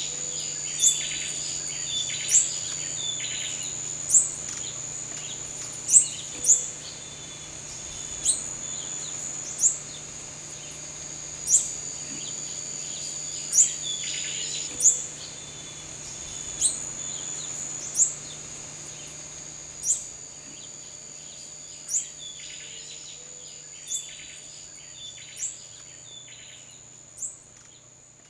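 Tropical forest ambience: a steady high insect drone, a sharp chirp repeating every one and a half to two seconds, and scattered bursts of bird calls. It fades out near the end.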